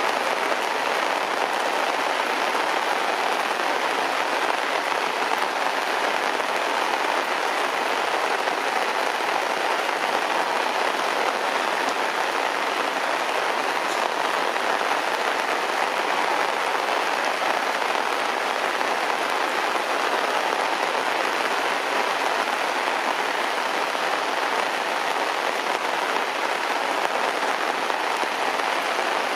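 Heavy rain falling steadily on grass, leaves and concrete: an even, unbroken hiss of drops.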